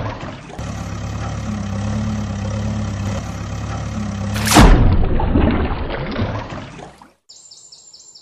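Diesel engine idling sound effect, a steady low hum, cut by a loud boom about four and a half seconds in that dies away over the next two seconds.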